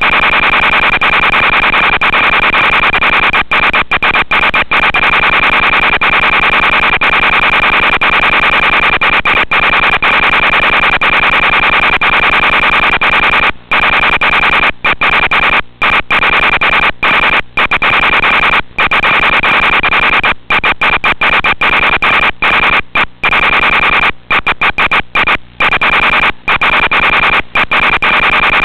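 Loud, steady static hiss with a constant high whine from the audio channel of an analog FPV video link. It drops out for split seconds many times in the second half.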